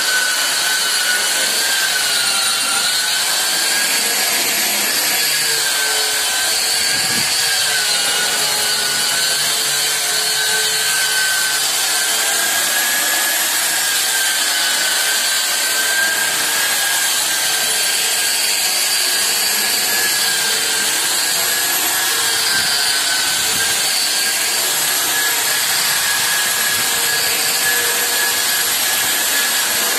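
Electric wall-putty sanding machine (round-head drywall sander with a dust-extraction hose) running against a puttied wall. It makes a steady, high-pitched motor whine over a sanding hiss, dipping slightly in pitch now and then as it is worked over the surface.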